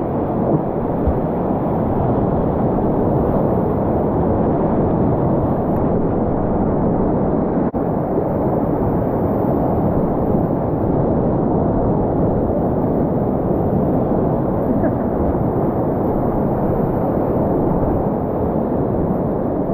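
Whitewater rapids rushing and breaking around a kayak close to the microphone: a steady, deep roar with little hiss, with a momentary dip in level about eight seconds in.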